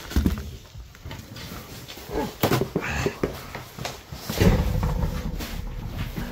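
Irregular knocks, clicks and thumps of hard objects being handled, the loudest a low thump about four and a half seconds in.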